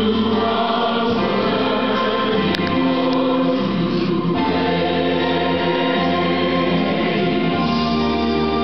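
Choir singing gospel-style worship music in long held chords that change every second or two.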